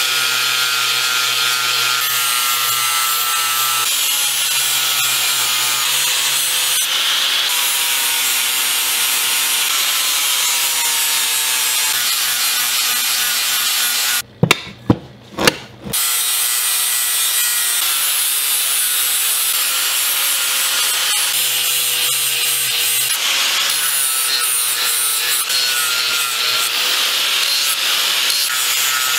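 Angle grinder with an abrasive disc grinding rust off the steel of an antique bearded axe head, a steady grinding noise over the motor's whine. About halfway through it stops for a couple of seconds, during which a few sharp knocks are heard, then grinding starts again.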